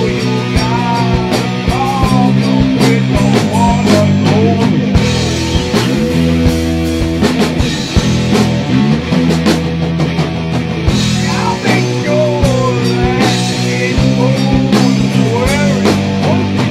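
Rock music with guitar and drums, a bending guitar lead over a steady bass line.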